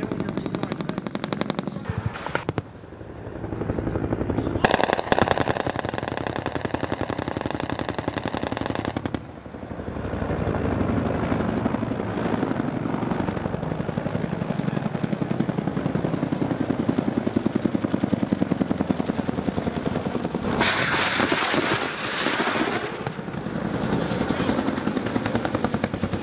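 Rapid automatic gunfire in long bursts. A sharper, brighter burst starts about five seconds in and lasts about four seconds, and another comes about twenty seconds in.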